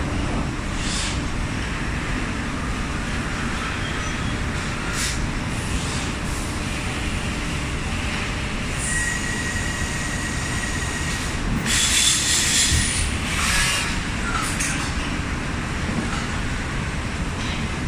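Cyklop pallet press and roller conveyor running steadily while compressing a stacked pallet of corrugated cardboard. Several short bursts of hiss cut through, the loudest about 12 seconds in, with a steady high whine for a couple of seconds just before it.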